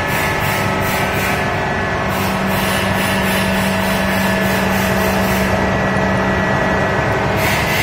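Hydraulic test bench running a repaired Caterpillar 312 excavator hydraulic pump under test: a steady mechanical drone with several steady tones over a hiss. The high hiss fades briefly about six seconds in.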